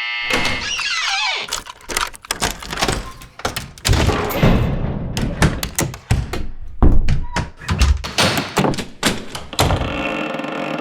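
Quick run of door sound effects: many sharp thunks, knocks and heavier slams, with a gliding creak about a second in. Music comes back in near the end.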